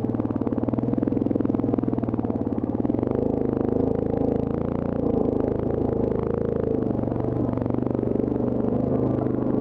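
Yamaha Grizzly ATV engine running at low speed under load, crawling over a rocky trail, with clattering and rattling from the machine and its loaded rack as it jolts over the rocks midway through.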